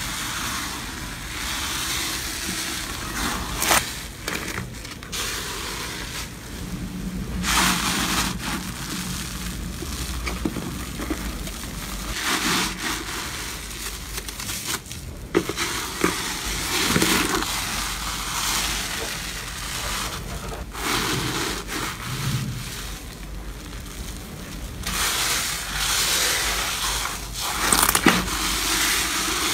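Slime being stretched, squeezed and pressed by hand in plastic tubs, making a steady crackling hiss of small bubbles popping, with a few sharp pops. The slimes are fluffy cotton slime and bubbly foam slimes.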